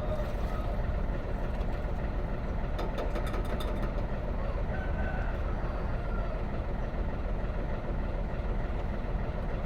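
Heavy truck engine idling steadily, with a quick run of clicks about three seconds in.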